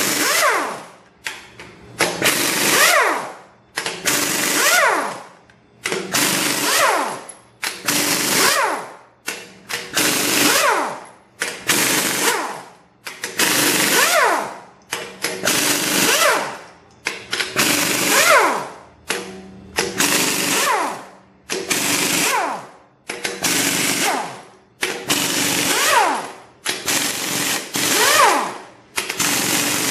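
Hand-held pneumatic impact wrench hammering bolts loose on a Cummins cylinder head. It comes in short bursts about every second or two, and each trigger release ends in a falling whine as the air motor spins down.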